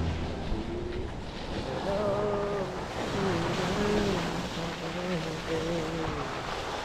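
A 2006 Toyota Tacoma's tyres rolling through wet snow, slush and mud: a steady rushing hiss, with wind buffeting the microphone.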